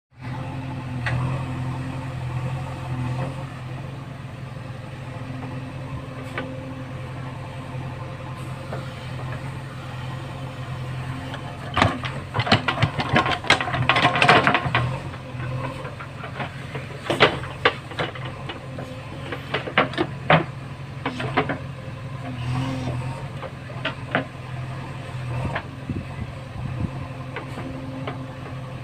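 A JCB backhoe loader's diesel engine running steadily. About halfway through, a few seconds of sharp knocks and rattles from the working machine come over it, followed by scattered single knocks.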